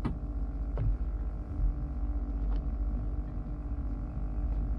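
Small fishing boat's engine running at idle: a steady low rumble with an even hum, and a few faint clicks over it.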